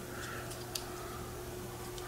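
Faint clicks of a small plastic battery housing being handled and its cover opened, one a little sharper about three quarters of a second in, over a low steady hum.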